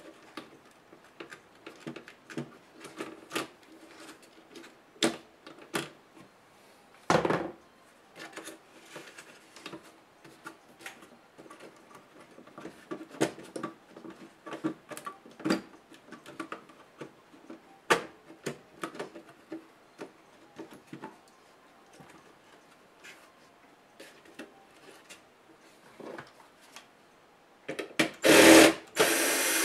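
Light clicks and taps of hands handling a laptop's plastic base and motherboard, then near the end a cordless electric screwdriver whirring in short spells as it drives a screw, the loudest sound.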